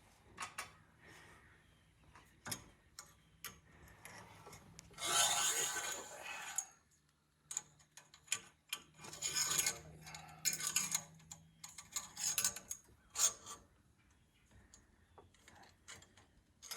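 A screw being driven in by hand while a light fixture is mounted: several bursts of scraping and rasping, the longest about five seconds in, among scattered clicks and taps of hardware.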